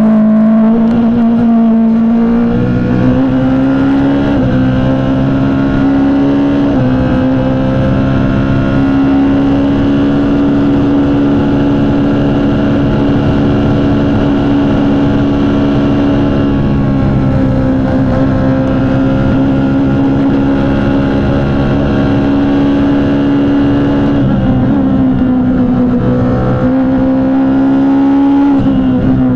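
Onboard sound of a Tatuus Formula Master single-seater's 2.0-litre four-cylinder racing engine running hard at high revs, its pitch held fairly steady and stepping briefly several times as the driver shifts gears.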